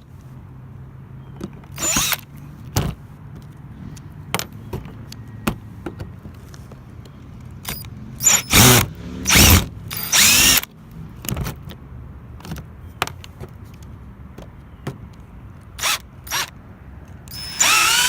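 Power drill backing screws out of a vintage camper's metal panel, its motor whining in several short bursts that rise and fall in pitch, with small clicks and taps of the bit and screws in between.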